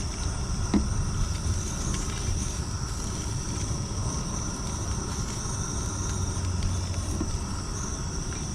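Insects, crickets or cicadas, trilling steadily at a high pitch over a steady low rumble, with a faint click about a second in.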